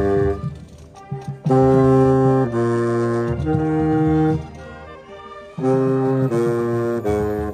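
Marching band winds and brass playing loud held chords in short phrases, the chord changing about once a second. The music drops out briefly about half a second in and goes quieter for a moment around five seconds in. A baritone saxophone sounds close by.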